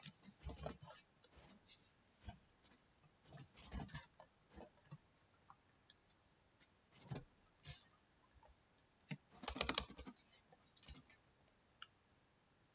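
Typing on a computer keyboard: scattered keystrokes in small clusters, with a quick run of keys about two-thirds of the way through.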